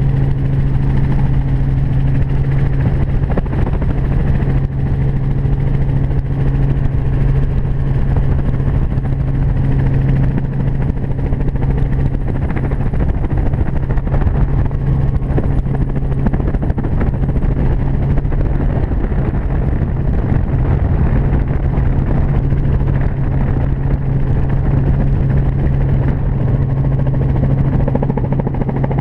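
A steady engine drone: a constant low hum that holds one pitch, under a rough rumble.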